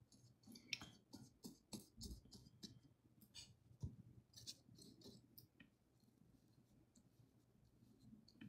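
Faint scratchy brushing: the bristles of a small synthetic flat brush stroking over paper in a quick series of short strokes, spreading water-soluble marker colour, stopping about halfway through.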